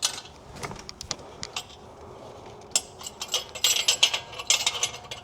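Sharp metal clicks and clinks from a downpipe V-band clamp being worked off by hand, scattered at first and then a quick rattling run from about three seconds in.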